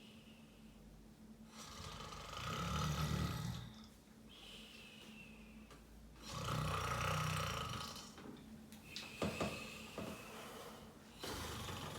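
Snoring: two long rasping snores, each followed by a thin whistle on the breath that falls in pitch. A few brief sharp clicks come about nine seconds in.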